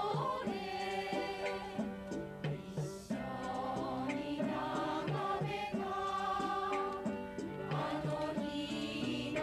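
A choir of mostly women singing a song together, moving through a run of long held notes over steady low accompaniment.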